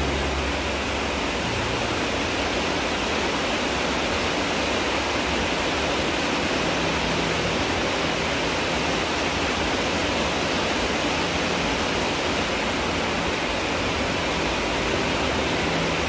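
Steady heavy rain on a house roof: a dense, even hiss that does not let up.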